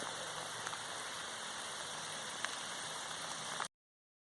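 Steady rain falling: an even hiss with a few sharp drop ticks. It cuts off abruptly near the end.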